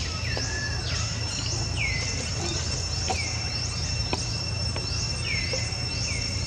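Outdoor insect drone, steady and high, with repeated high calls that fall sharply in pitch and level off, one or two a second, and a few faint ticks.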